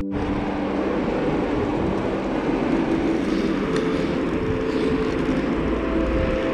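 Steady rushing wind and tyre noise on the camera of a mountain bike riding on asphalt.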